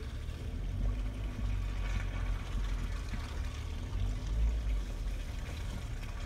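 Off-road vehicle's engine running low and steady at crawling speed, heard from inside the cab, with the tyres rolling and splashing through mud and puddles.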